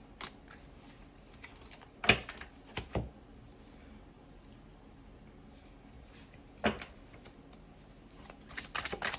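Tarot cards being handled on a table: a few sharp single snaps as cards are laid down, then a quick run of rapid card flicks near the end, as in shuffling.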